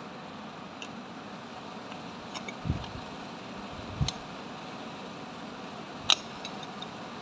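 Small metal clicks and dull knocks from hand tools and a bolt being handled on a 12 V starter motor's end housing, over a steady background hum. There are two low knocks around the middle, and a sharp metallic click about six seconds in is the loudest sound.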